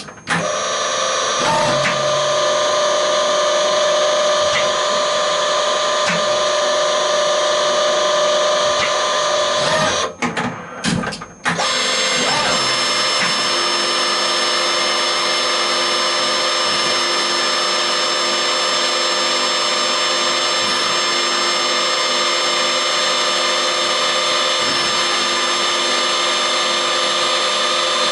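EMCO E-25-TCM CNC lathe running steadily under load, a whine made of several held tones. The run breaks off a few times for a moment about ten seconds in, then goes on with a changed set of tones while a small drill on the turret drills a fine hole into the end of the part.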